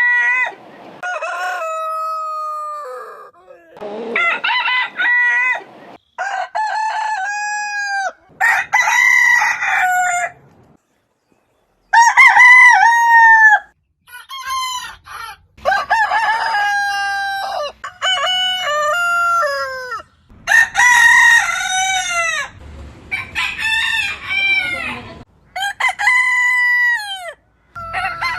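Roosters crowing one after another, about a dozen crows, each lasting a couple of seconds. The crows come at differing pitches and lengths from several different birds, with short silent gaps between some.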